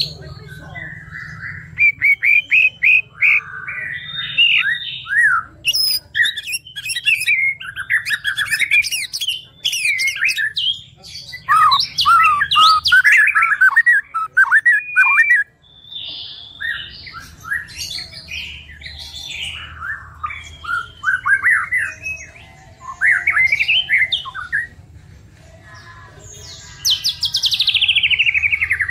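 White-rumped shama (murai batu) singing a loud, varied song of whistled phrases and fast chattering trills with short pauses between them, ending in a long trill that falls steadily in pitch near the end.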